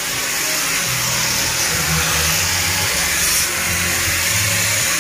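Steady whirring of an electric power tool running continuously in the marble workshop, with background music's low bass notes stepping underneath.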